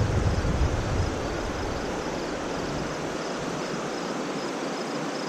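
Wind buffeting the microphone for the first second or two, over a steady rushing noise of river water. A faint, regular high-pitched ticking repeats throughout.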